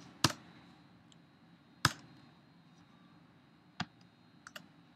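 A few isolated computer keyboard keystrokes, sharp single clicks spaced well apart: one shortly after the start, one near two seconds, one near four seconds, then two faint ones.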